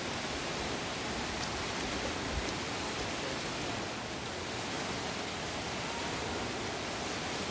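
Fast-flowing muddy floodwater rushing past, a steady, even noise of churning river water.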